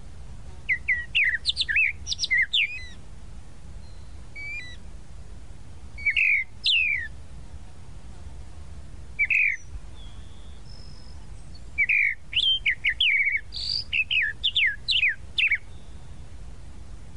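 Tropical mockingbird singing: clusters of quick, sharply sliding whistled notes in phrases several seconds apart, over a faint low rumble.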